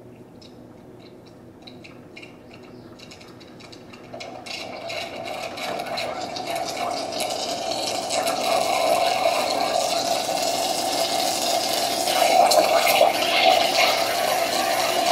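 Capresso C1000 espresso machine's steam wand frothing milk in a stainless steel pitcher. Spitting and sputtering for the first few seconds, then a steady hiss of steam through the milk from about four seconds in, growing louder.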